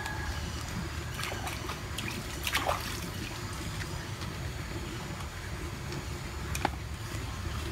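Shallow ditch water splashing and trickling as small fish are rinsed by hand, with sharper splashes about two and a half seconds in and again near the end, over a steady low rumble.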